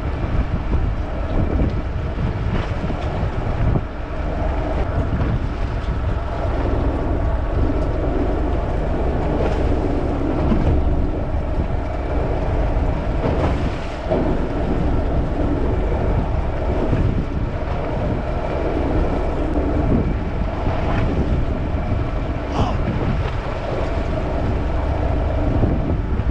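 Wind buffeting the microphone aboard a small fishing boat on choppy sea. Underneath are waves washing against the hull and the boat's engine running steadily.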